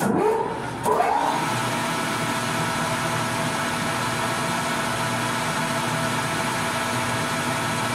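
Metal lathe starting up: the motor and spindle with a large four-jaw chuck spin up with a rising whine in the first second, then run steadily at speed with a steady hum.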